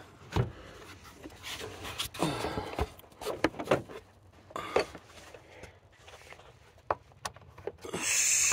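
Hands refitting the truck's plastic air intake duct and engine cover: scattered clicks, knocks and rubbing of plastic and rubber, with a brief rushing burst near the end.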